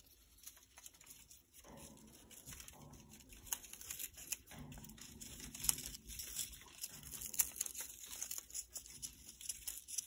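Congo African grey parrot chewing and shredding a corrugated-cardboard chew toy with her beak: irregular crinkling, crunching and tearing of cardboard, faint at first and growing busier a few seconds in.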